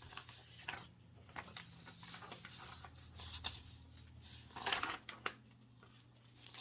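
Irregular rustling, scraping and small clicks from something being handled close to the microphone, loudest briefly just before the five-second mark, over a steady low hum.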